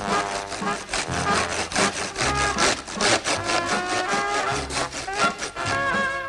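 Hand saw cutting through a wooden box in repeated back-and-forth strokes, with music underneath.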